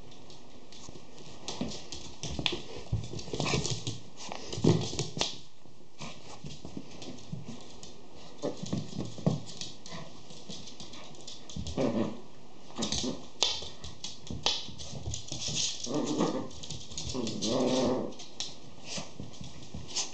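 Schipperke and pinscher puppies play-fighting over a plush toy: short growls and whimpers, with scuffling and quick clicks of claws on a wooden floor, coming in irregular flurries.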